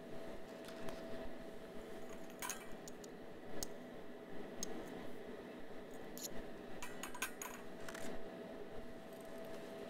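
Scattered light clicks and taps of glass test tubes in a wire rack and pH test strips being handled on a lab bench, over a faint steady hum.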